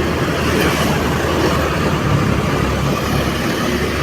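Vehicle driving along a road: steady engine running and road noise, with no sudden events.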